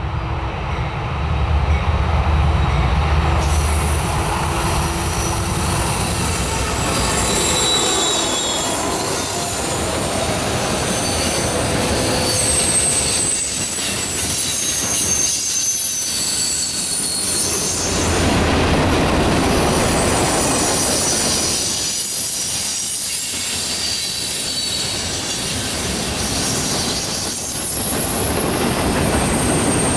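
Freight train of covered hopper cars rolling past on a curve, steel wheels squealing against the rails in thin high whines over the steady rumble of the cars. Near the start a low diesel locomotive drone fades out.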